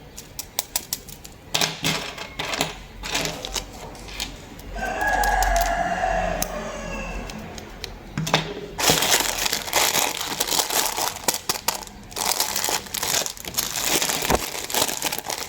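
Plastic packaging being handled: light clicks and taps at first, a brief pitched squeak in the middle, then dense crinkling of plastic wrap from about nine seconds in.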